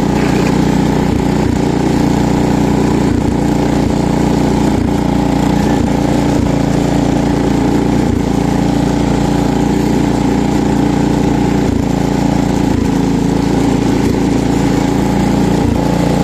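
Cub Cadet 126 garden tractor's 12-horsepower Kohler single-cylinder engine running steadily as the tractor is driven, its carburetor due for a rebuild that the owner says will make it run better.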